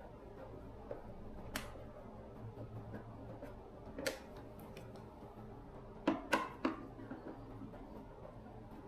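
A few sharp clicks and knocks of parts or tools being handled during a repair, a cluster of three about six seconds in, over a faint low hum.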